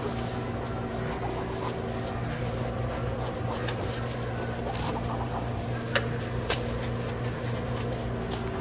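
Steady low hum of running kitchen equipment, with two sharp clicks about half a second apart a little past the middle, among quiet handling of bread and paper.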